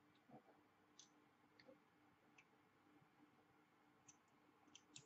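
Near silence with faint, scattered small clicks and ticks: hands handling a vape mod and its atomizer.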